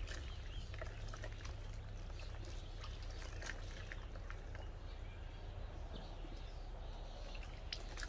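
Water splashing and trickling in small scattered bursts as a scrubbed mesh sneaker is rinsed in a container of water, over a steady low rumble.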